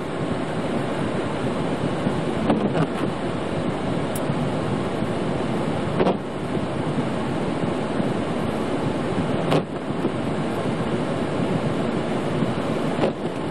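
Steady road and engine noise heard from inside a truck's cab as it drives on a snow-covered road, with the windshield defrost fan blowing. A short click comes about every three and a half seconds.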